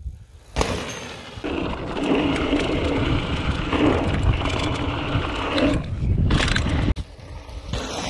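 Mountain bike riding fast down a dirt trail: tyres rolling and scraping over dirt, with rattling and wind on the camera microphone. The noise starts and stops abruptly at about one and a half seconds and again about six seconds in.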